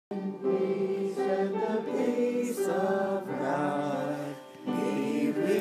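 A choir singing in slow, held notes, with a short break between phrases about four and a half seconds in.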